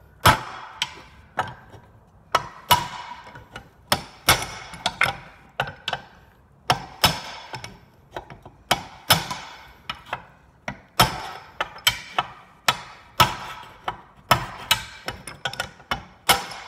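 A hammer tapping on metal again and again, roughly one to two sharp, briefly ringing strikes a second, driving the metal ring of a control arm bushing out a little at a time from different sides.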